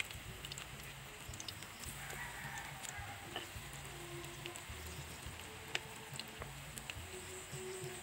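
Banana slices frying in hot oil in a wok: a soft sizzle with scattered small pops, with chickens clucking now and then in the background.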